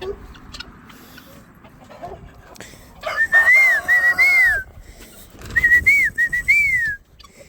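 A clear whistled call: a short phrase of several rising-and-falling notes, given twice in the second half, over faint farmyard background.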